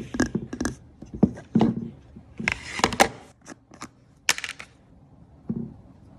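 Slime being squeezed and pulled, giving irregular sharp wet clicks and pops, with a longer crackling squelch about two and a half seconds in.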